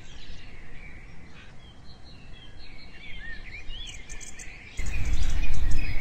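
Birds chirping, with short rising and falling whistled calls, over a soft outdoor background hiss. About five seconds in, a louder low rumble cuts in suddenly while the chirping goes on.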